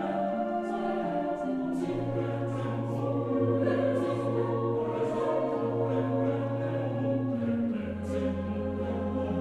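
Background choral music: voices holding long, slowly changing chords, with a low sustained bass note coming in about two seconds in and dropping lower near the end.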